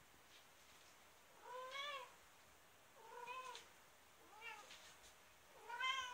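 A cat meowing four times, short meows a little over a second apart, each rising and falling in pitch; the last is the loudest.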